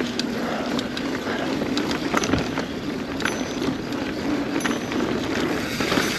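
Mountain bike rolling downhill over a rough, rocky trail: steady tyre and ride noise with frequent rattles, clicks and knocks from the bike.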